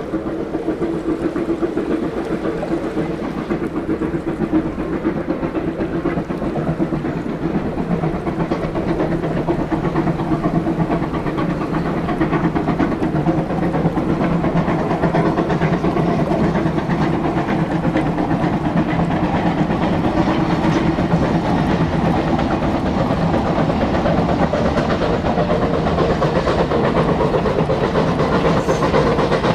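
Baldwin 4-6-2 Pacific steam locomotive at work hauling a train of coaches, its exhaust beat and the running of the train on the rails growing a little louder as it passes.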